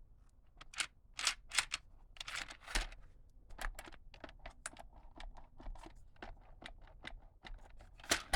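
Hands handling a plastic RC toy car and its packaging: irregular clicks, taps and short rustles, with a cluster of louder rustles about a second or two in and a sharp click near the end.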